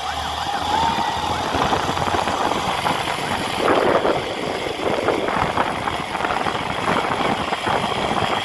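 A siren yelping in fast rising-and-falling sweeps for about the first second, then a steady noisy din of traffic with vehicle engines running.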